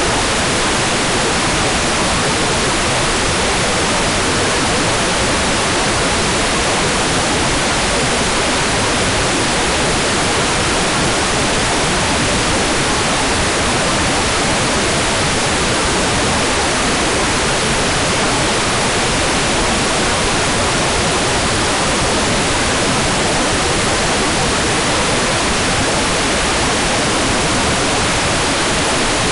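Hairdryer running steadily as white noise: an even, unchanging rush of blown air with no rise, fall or break.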